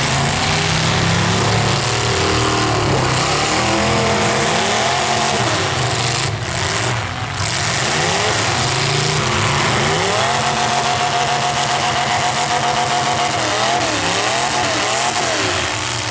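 Several full-size car engines revving hard at once, pitches rising and falling over a loud wash of noise; about ten seconds in one engine is held at high revs for a few seconds before wavering up and down.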